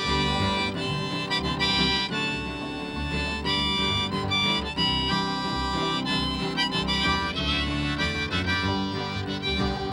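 Harmonica over strummed acoustic guitar, a folk song's instrumental ending, fading out near the end.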